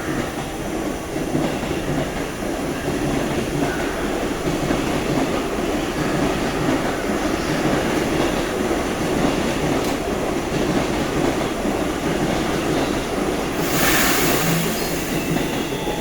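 Train running on the tracks through a station: a steady rumble of wheels and motors. A brief hiss comes near the end.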